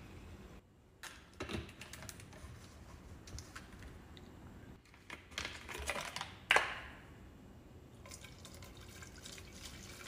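Liquid cleaner being poured from a plastic jug into a plastic spray bottle, with small clicks and knocks of bottles and caps being handled. A cap is twisted off the second jug, with a sharp click about six and a half seconds in.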